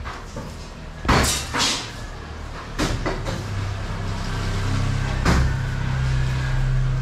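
A few sharp knocks and scrapes, then a steady low engine hum that comes up about halfway in and holds.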